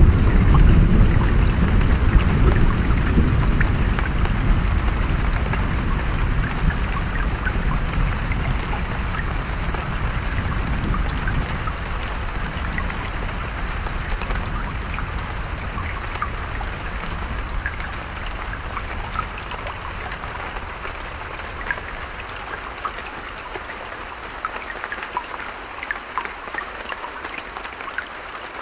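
Steady rain with scattered individual drop ticks, under a long low thunder rumble that is loud at the start and slowly dies away over the first twenty seconds or so.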